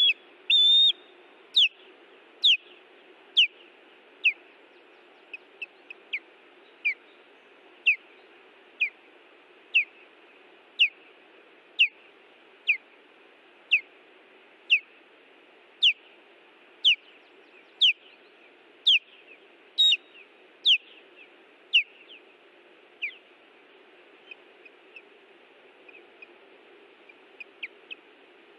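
Osprey alarm calls from a bird defending its nest: a long series of sharp whistled notes, each sliding downward, about one a second. They thin out and turn faint in the last few seconds, over a steady low hiss.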